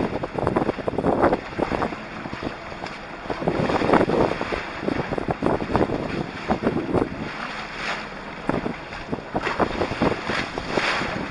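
Sea water rushing and splashing against a small sailing trimaran's hull and float as it crosses choppy waves, in irregular surges, with wind buffeting the microphone.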